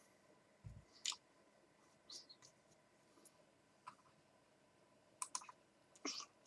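Near silence with scattered faint clicks: a soft low thump under a second in, a few single clicks, and a quick run of clicks near the end.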